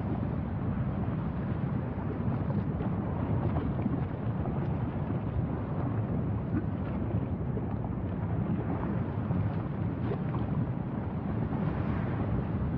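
Wind rushing over the microphone: a steady low rumble with no breaks.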